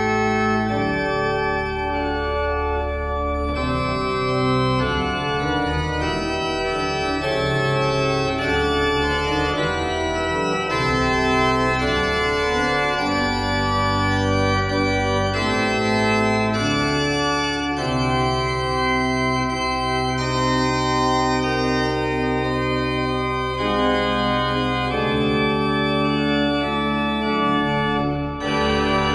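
Church pipe organ playing a piece in sustained chords over long-held deep bass notes, the notes changing every second or so.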